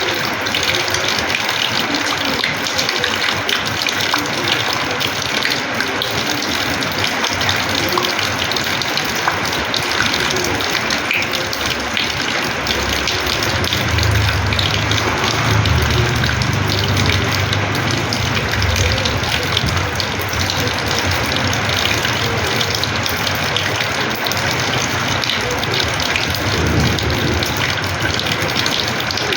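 Heavy rain with runoff water gushing and splashing steadily onto a terrace floor. A low rumble joins for several seconds around the middle.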